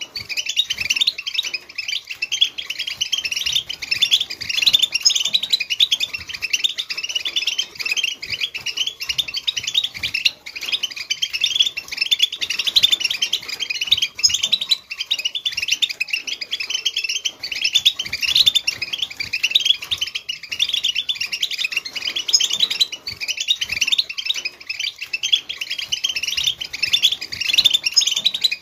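European goldfinch song in the Wedani style: a long, unbroken run of rapid twittering trills and chirps.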